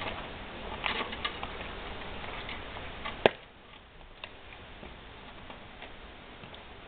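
Small metallic clicks and taps of hand work on a moped's engine, with rustling handling noise for about three seconds and one sharp click about three seconds in, then a few faint ticks.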